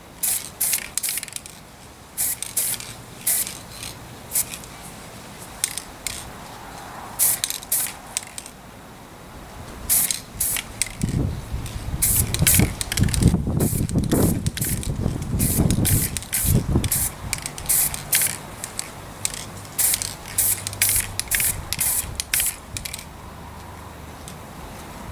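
Paint being sprayed in many short hissing bursts with brief gaps between them. A louder low rumble comes in for several seconds about halfway through.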